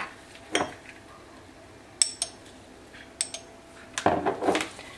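A teaspoon tapping and clinking against small glass spice jars and a ceramic bowl as spice is measured in: a single tap, two pairs of sharp clinks with a brief ring, then a louder knock near the end.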